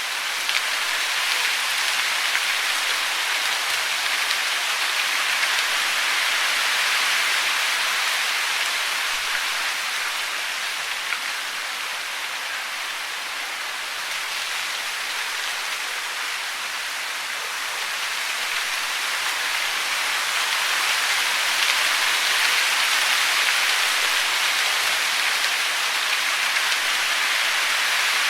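Steady hiss of falling water, with no birdsong over it. It swells and eases slightly, a little quieter in the middle.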